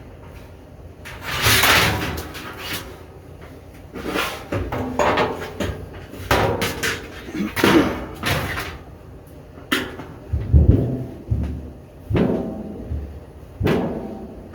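Irregular bangs, knocks and scrapes of sheet-metal feeder parts being handled and fitted, loudest a little after a second in and again around ten to eleven seconds in.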